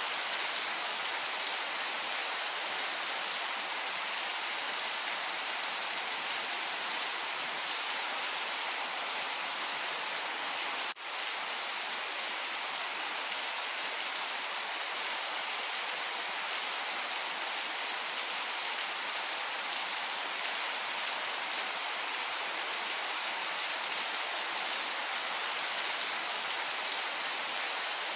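Steady rain: an even, continuous hiss. About eleven seconds in the level drops for a split second, as at an edit or loop point.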